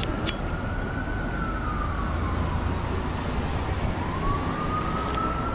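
An emergency-vehicle siren wailing, rising and falling slowly: it peaks about a second in, sinks, and climbs again near the end. Steady low street noise runs underneath.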